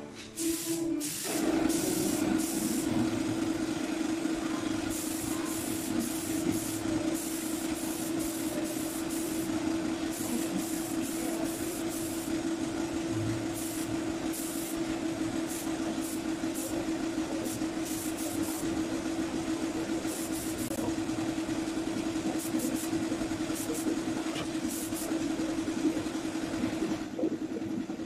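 Air compressor motor starting about a second in and running steadily, with repeated short hisses of a gravity-feed paint spray gun triggered in bursts while spraying a finish coat.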